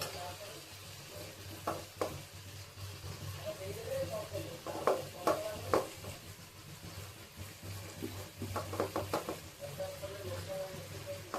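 Paneer dish frying and sizzling in a pan while a spoon stirs it, with sharp clinks of the spoon against the pan in small groups: twice about two seconds in, three times around the middle, and a quick run near the end.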